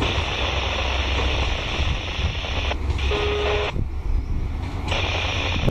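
Heavily loaded iron ore wagons rolling away over the rails, a steady low rumble of wheels and train. A short steady tone sounds briefly about three seconds in.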